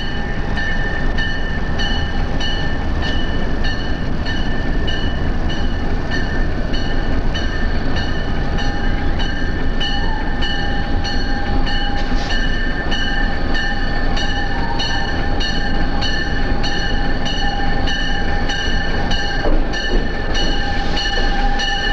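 Long Amtrak passenger train, hauled by two EMD SDP40F diesel locomotives, rolling past. Its wheels click over the rail joints about twice a second, over a steady rumble and a steady high whine.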